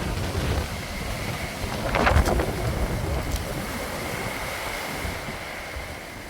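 Wind buffeting the microphone over the rush of sea waves, with a stronger gust about two seconds in.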